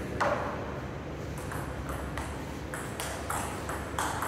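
Table tennis rally: the celluloid-type ball clicking off the rubber paddles and bouncing on the table. It makes a quick run of sharp ticks about every half second, and the loudest comes about a quarter second in.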